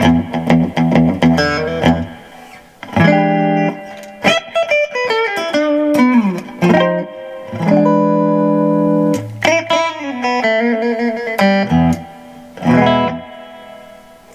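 Monoprice Indio Retro Classic Tele-style electric guitar played through an amp: quick strummed chords for about two seconds, then picked chord phrases and single notes with some bent notes, ending on a chord that rings out and fades.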